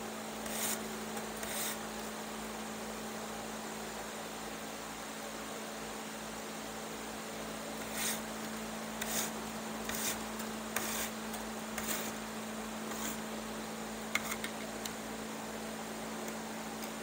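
Steady electrical hum with a dozen or so short, light scratchy ticks and rustles of a strand of chair cane being threaded and pulled through the woven cane.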